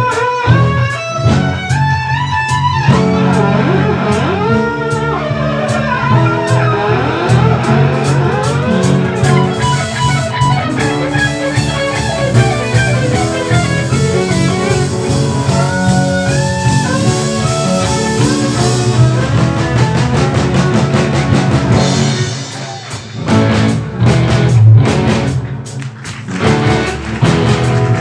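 Live jazz-rock fusion band playing: electric violin and electric guitar lead lines with bending notes, over bass guitar and drum kit. About three-quarters of the way through, the band drops back to sparse, accented hits.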